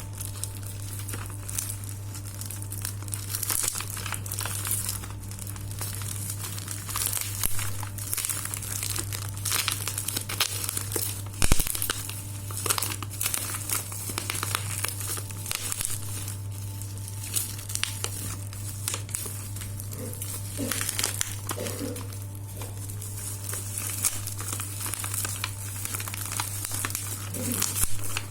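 Packaging being handled during an unboxing, crinkling and rustling in irregular crackles with some tearing, over a steady low hum. A sharp click about eleven seconds in is the loudest sound.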